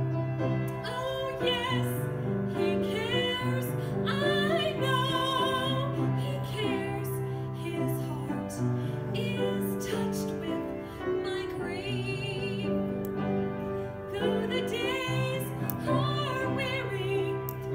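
A woman singing a hymn solo with a wide vibrato, accompanied by piano, in long held phrases.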